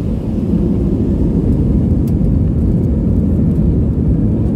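Airbus A320 engine and rolling noise heard inside the cabin as the airliner taxis onto the runway: a steady low rumble that swells slightly about half a second in and then holds level.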